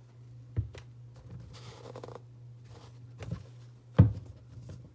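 Sneakers being handled: soft rustling and three knocks, the loudest near the end, over a steady low hum.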